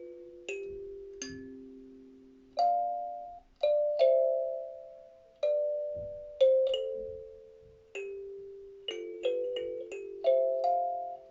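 Kalimba being played slowly: single plucked tines and two- or three-note chords, each ringing out and fading, a new note every second or so.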